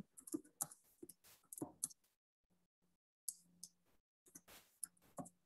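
Faint, scattered clicks of a computer keyboard and mouse as a password is retyped, with near silence between them.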